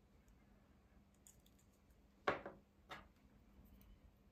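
Two light clicks of small hand tools, tweezers and a flux syringe, being handled and set down on the bench. The first comes a bit over two seconds in and the second about half a second later, over a faint steady hum.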